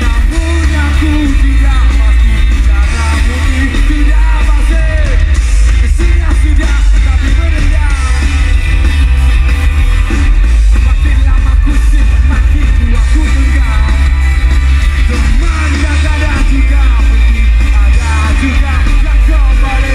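Live rock band playing loudly through a festival PA, with singing over a heavy bass.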